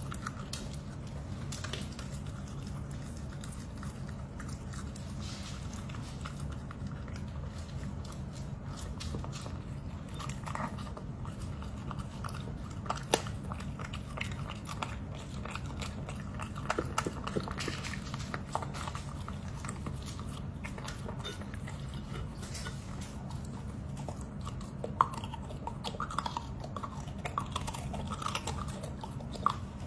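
A dog chewing and crunching raw vegetables, with scattered sharp crunches and bites over a steady low hum.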